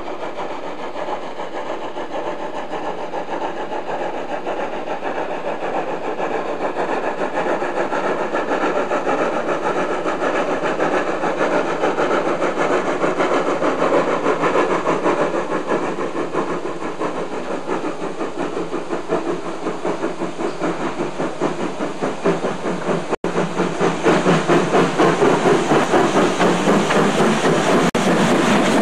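Mallet 0-4-4-0 narrow-gauge steam tank locomotive working hard up a 1 in 25 gradient with a heavy five-carriage train. It gives a rapid, steady beat of exhaust that grows louder as it draws near, with the loudest beats near the end as it passes close. The sound drops out for an instant about two-thirds of the way through.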